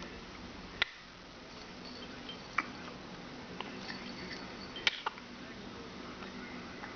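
An 11-week-old baby hiccuping: short, sharp hics about two seconds apart, with three clear ones and a fainter one between.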